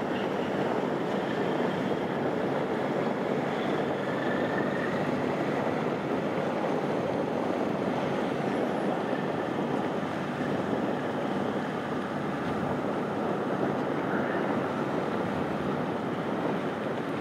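Steady harbour ambience: an even wash of wind and water noise with no distinct events.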